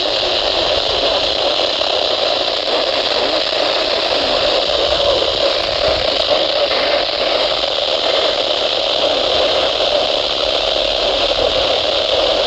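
Radio static: a steady, loud hiss from a radio receiver picking up no clear signal.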